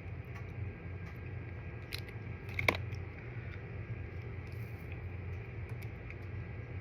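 Close-up chewing with scattered small wet mouth clicks, one sharper click near the middle, over a steady low hum.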